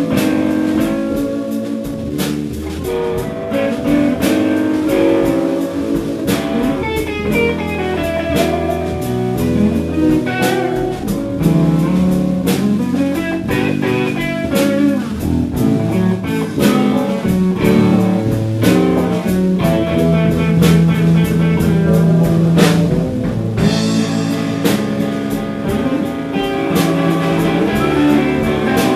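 Live blues band playing an instrumental break: electric guitar lead lines with note slides over a drum kit and backing guitar.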